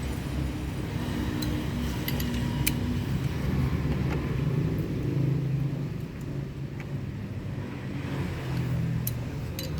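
Honda BR-V's 1.5-litre four-cylinder petrol engine running at idle after a tune-up and oil change: a steady low hum that swells slightly around the middle, with a few light clicks.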